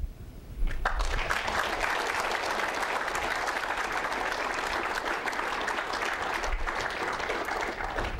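Audience applauding: dense, steady clapping that starts about half a second in.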